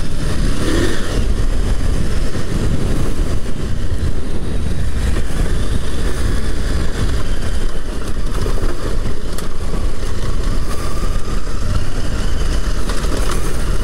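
Husqvarna Norden 901's 889 cc parallel-twin engine running under way, heard through heavy wind rumble on a helmet microphone while riding over bumpy ground.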